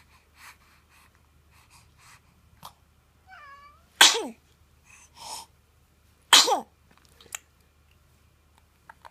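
A five-week-old baby sneezing twice, two sharp, loud sneezes about two and a half seconds apart, with a small squeaky vocal sound just before the first.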